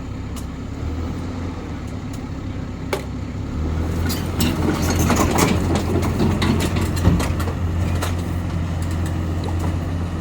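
Excavator's diesel engine running steadily, getting louder about three and a half seconds in, with a run of sharp metallic knocks and clatter through the middle.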